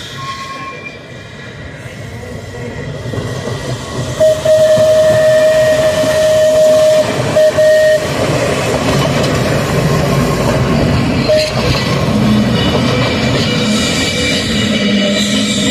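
Manx Electric Railway electric tram passing close, sounding its warning horn: one long steady blast from about four seconds in, a brief second blast, and a short toot a few seconds later. The cars' wheels rumble on the rails throughout.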